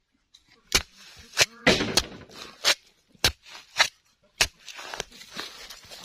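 Long-handled digging tool striking hard, stony soil again and again while digging a hole: a sharp strike every half second to second, with soil scraping and crumbling in between.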